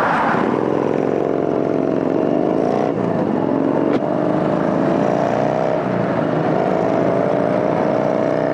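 Yamaha Bolt's air-cooled V-twin motorcycle engine running under way, its note climbing slowly as it accelerates, with brief breaks about three and four seconds in, over steady wind rush.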